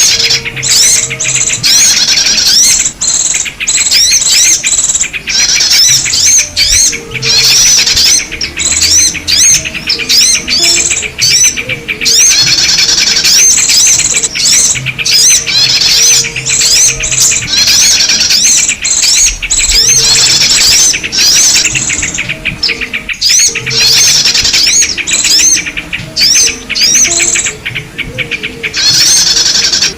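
Recorded bird-lure call for trapping small birds: dense, loud chattering of small birds with rapid strings of rising chirps, continuing with only brief breaks.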